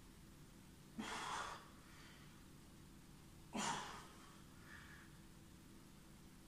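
A man breathing hard through a plank-rotation exercise with a dumbbell: two short, forceful breaths, about a second in and again two and a half seconds later.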